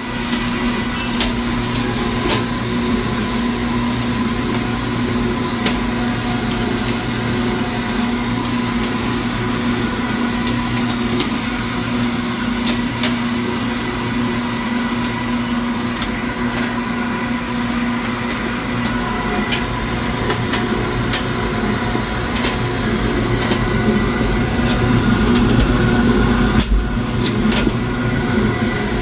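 500 kg ribbon mixer running, its motor and gear drive turning the ribbon agitator in the trough: a steady hum with scattered sharp ticks.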